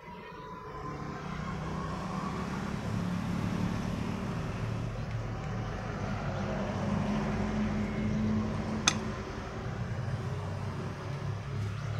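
A motor vehicle engine running steadily, a low rumble that builds up over the first second or so. A single sharp click about nine seconds in as the metal casing of a vape pod mod is pried open.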